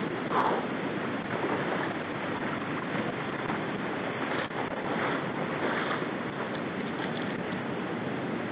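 Steady rush of flowing river water, an even noise throughout.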